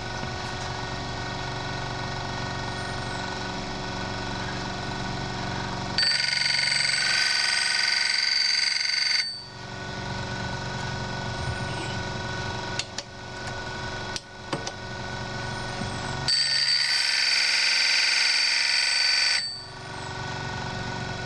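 Sharpening machine's motor running steadily with a hum and whine. Twice, about six seconds in and again about sixteen seconds in, a louder high-pitched grinding lasts about three seconds each time as the face of a carbide router bit is plunged against the wheel, then stops abruptly.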